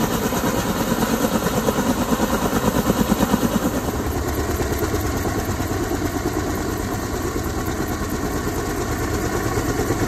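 Kaman K-MAX intermeshing-rotor helicopter in flight with a load on a long line: a rapid, steady beating of the rotor blades over engine noise. It is loudest a few seconds in and eases a little as the helicopter climbs away.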